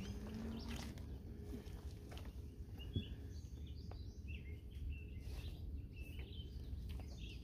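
Small birds chirping in short rising and falling calls over a steady low rumble, with a single sharp click about three seconds in.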